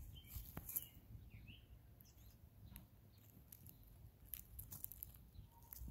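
Near silence with faint scattered rustles and light crackles of evergreen branches being pushed aside, and a few faint bird chirps in the first couple of seconds.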